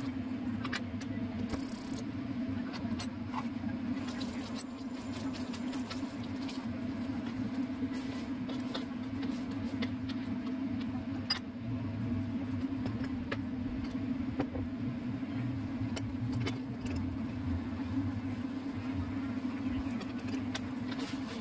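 Canned sardines in tomato sauce simmering in a steel wok: scattered small pops and crackles over a steady low hum, with now and then the scrape of a metal spatula against the wok.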